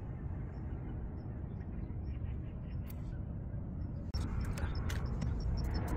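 Steady low outdoor background noise. About four seconds in it abruptly gets louder, and a run of light clicks and taps begins.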